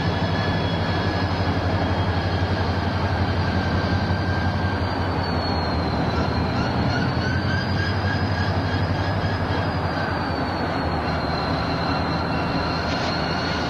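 Southern Pacific diesel locomotive running at low speed on yard track: a steady low engine hum under a thin, wavering high squeal of steel wheels on rail. It gets a little quieter in the last few seconds.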